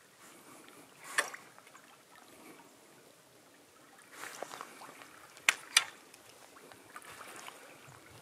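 Soft water sloshing and small splashes from a hooked steelhead working at the river's surface, with three sharp clicks, one about a second in and two close together later on.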